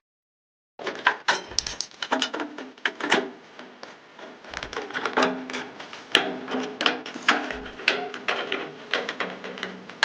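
A rapid, irregular series of sharp clicks and knocks, with some brief ringing tones, starting about a second in after a moment of silence.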